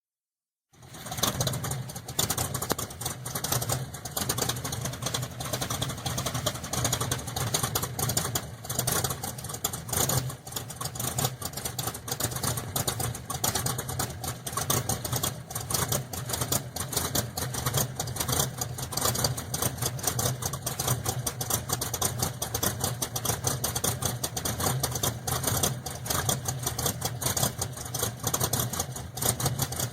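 1973 Chevrolet Camaro engine with a Crane 232-duration cam idling on a cold start, exhaust pulsing unevenly through dual exhaust into separate Magnaflow turndowns. The sound comes in about a second in.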